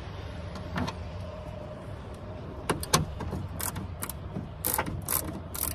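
Scattered sharp clicks and knocks of a car door speaker and its plastic mounting being worked loose and handled, over a steady low background hiss.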